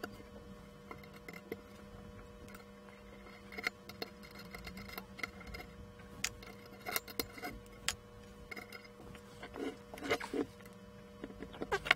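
Scattered light clicks and knocks of metal parts being handled and shifted on a workbench as a scanner's machined aluminium optical block and its mounting plate are worked at to come off, over a faint steady hum.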